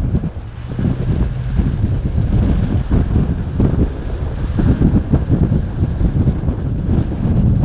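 Wind buffeting the microphone of a camera mounted on top of a moving off-road vehicle's windshield, over a low, uneven rumble of tyres on a dirt and gravel road.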